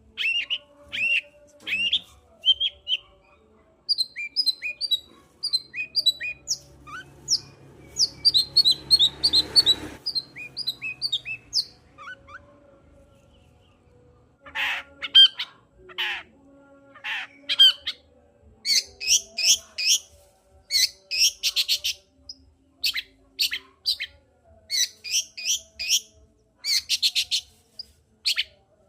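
Long-tailed shrike singing: runs of quick, sharp chirps and harsh notes, broken by a short pause about halfway through. A brief rushing hiss sounds under the calls about eight seconds in.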